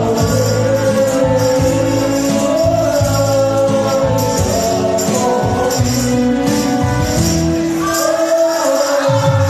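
An older man singing through a microphone over a recorded music backing track, holding long notes, with a rattling hand percussion instrument keeping a regular beat.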